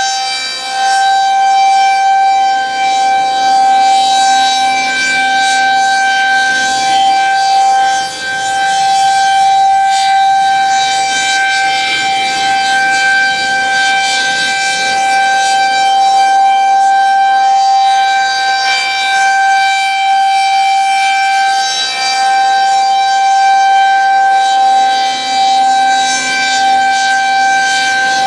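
Federal Signal 2001-SRNB electromechanical outdoor warning siren sounding its monthly test, holding one steady high tone with brief dips in loudness now and then.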